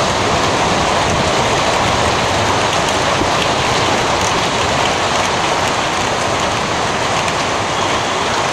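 Heavy hailstorm: a downpour of rain and hail falling in a loud, steady, unbroken rush, with faint ticks of hailstones striking.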